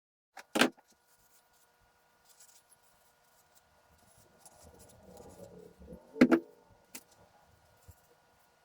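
Hard parts being handled, with a sharp clank about half a second in, some quiet rattling and shuffling, then a louder double clank just after six seconds and a lighter knock right after it. A faint steady hum runs underneath.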